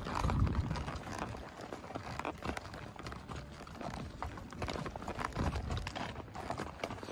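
Hoofbeats of a horse walking on a rocky gravel trail: an irregular run of clip-clops and stone crunches.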